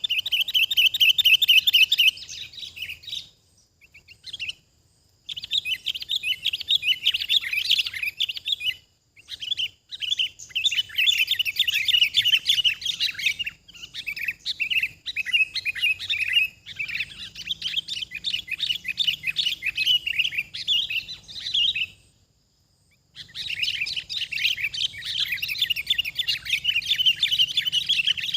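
Sooty-headed bulbuls (kutilang) chattering, with long bouts of rapid, high chirping notes broken by short pauses.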